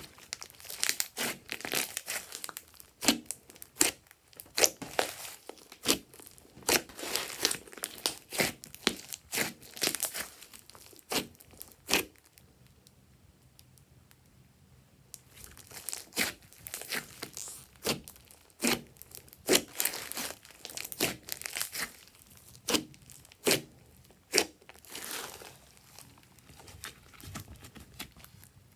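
Glossy slime being squeezed, stretched and pressed by hand, giving irregular sticky pops and crackles, with a pause of a couple of seconds near the middle.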